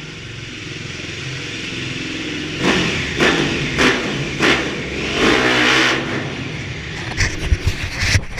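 Dirt bike engine revving in a string of short throttle blips, roughly one to two a second, inside an empty concrete building, with a few heavy thumps near the end.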